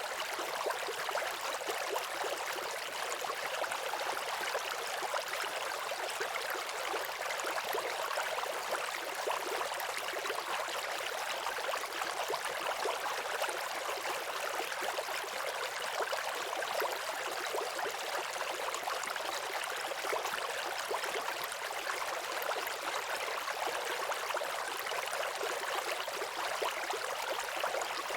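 Waterfall: a steady, unbroken rush of falling water, a dense hiss with little low rumble.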